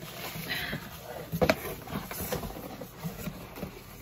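Cardboard shipping boxes being opened and handled: a short scrape of cardboard sliding, then a sharp knock and several lighter knocks and rustles as shoe boxes are lifted out.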